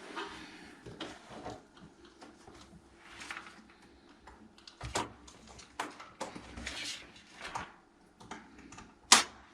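Plastic and metal parts of an LCD monitor being handled and pried apart: scattered clicks, taps and rustles, with a sharp snap about nine seconds in.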